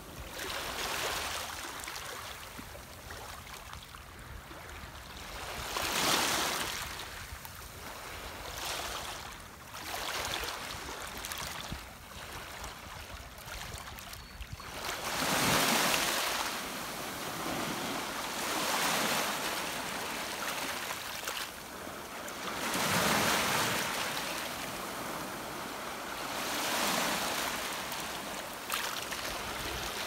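Small waves washing in over a pebble beach, each wash swelling and fading every three to four seconds.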